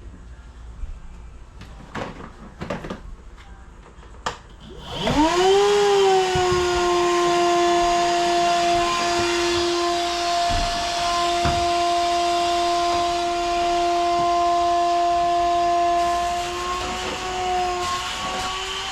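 A few light knocks, then about five seconds in a small electric motor spins up with a quick rising whine and runs on at one steady pitch.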